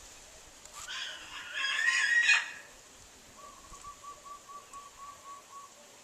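A large pet bird giving one loud, drawn-out call that rises in pitch, followed by a fainter run of about ten short, quick repeated notes.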